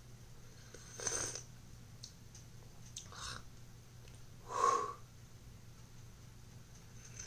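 A person sipping a drink from a mug: three short slurping sips, the last the loudest.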